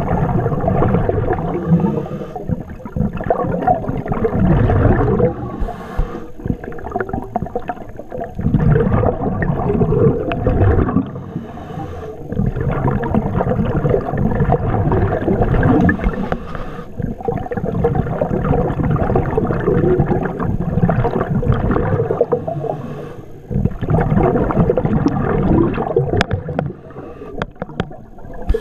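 A scuba diver breathing through a regulator underwater: exhaled bubbles gurgle and rumble in surges a few seconds long, with short quieter breaks between breaths.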